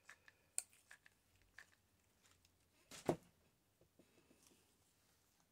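Faint handling sounds of craft materials: scattered light clicks and rustles of paper and fabric scraps, with one sharper knock about three seconds in.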